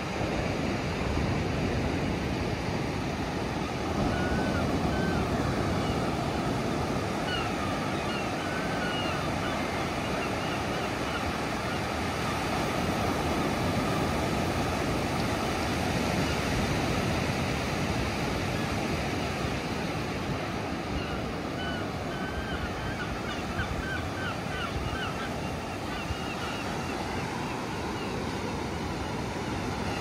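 Ocean surf breaking and washing up the beach in a steady rush. Short bird calls come through it a few seconds in, again around eight seconds, and in a longer string in the second half.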